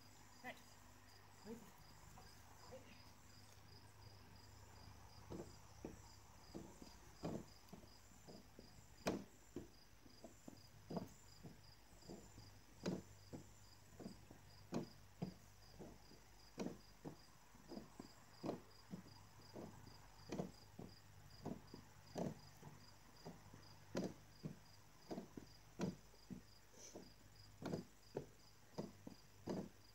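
Feet stepping on and off a plastic aerobic step platform, giving dull knocks about once a second. Under them, insects keep up a steady, rapid pulsing chirp.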